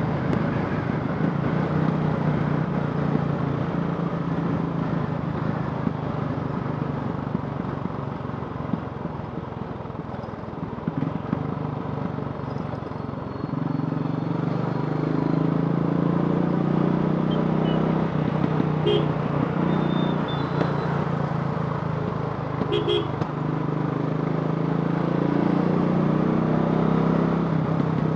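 Royal Enfield Classic 500's single-cylinder four-stroke engine, converted from fuel injection to a carburettor, running. It eases off and quietens about a third of the way in, then picks up again from about halfway, its note rising and falling.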